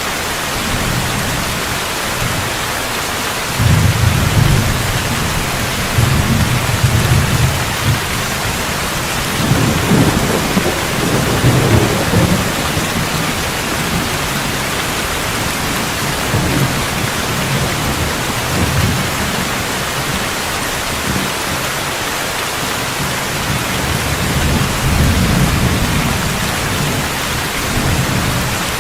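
Steady heavy rain hissing, with low rolling thunder rumbling up several times, loudest about 4 seconds in, again from about 6 to 12 seconds in, and once more near the end.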